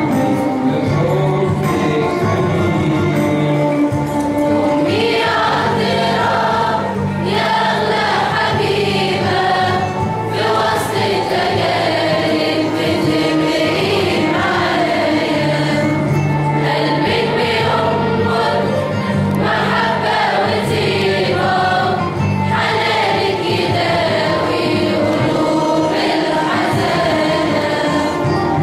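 Mixed youth choir singing an Arabic Coptic hymn to the Virgin Mary, with steady low held notes underneath the voices.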